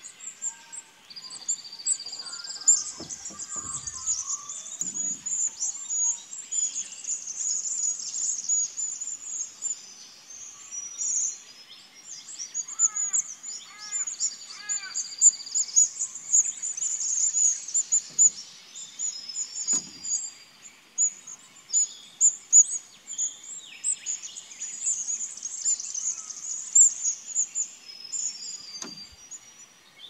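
Morning dawn chorus: many birds singing and chirping at once, a dense high twittering throughout. About halfway through comes a short run of lower, repeated call notes.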